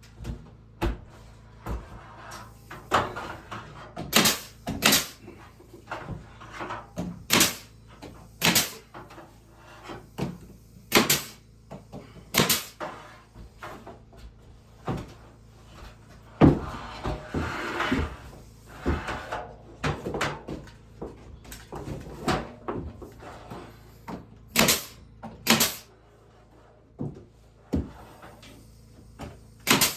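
Sharp knocks of wood on wood from woodworking, coming irregularly about every one to two seconds and sometimes in pairs, with a short stretch of scraping and rustling about halfway through.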